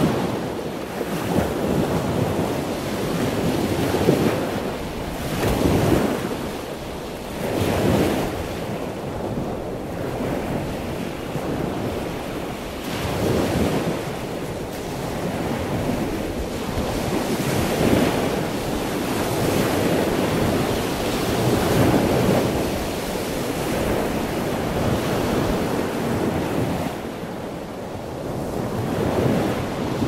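Ocean waves in a continuous rushing wash that swells louder and falls back every few seconds.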